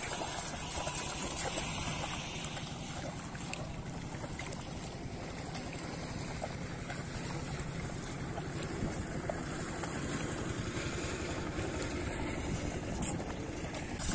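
Water splashing and sloshing as legs wade through shallow flooded field water, pushing a plastic basin along, with a steady rush of wind on the microphone.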